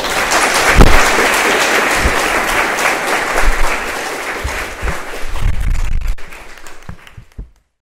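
Audience applauding, the clapping thinning out and stopping near the end, with a few low thumps along the way.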